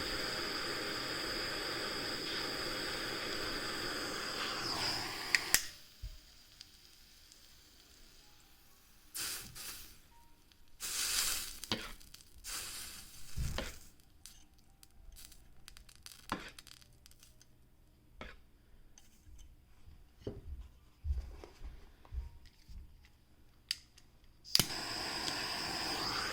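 Soldering torch flame hissing steadily, then shut off about five and a half seconds in. Quiet follows, with scattered light taps and clicks. The torch hiss starts again near the end.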